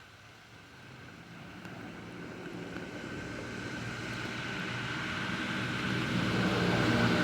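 An engine approaching and growing steadily louder, from faint to its loudest near the end.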